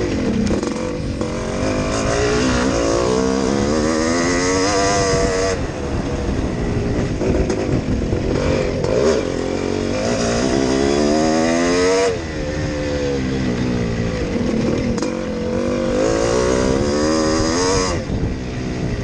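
1980 Yamaha YZ465G's two-stroke single-cylinder engine revving under race throttle. The pitch climbs for several seconds at a time and drops sharply as the throttle is chopped: about five and a half seconds in, about twelve seconds in, and near the end.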